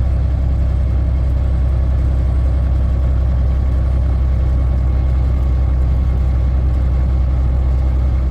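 Volvo VNL780 semi-truck's diesel engine running with a steady low drone.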